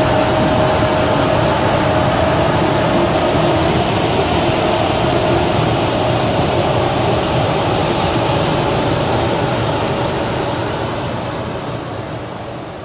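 Truck-mounted runway sweeper running, a steady loud noise with a whine running through it, growing fainter in the last few seconds as it pulls away.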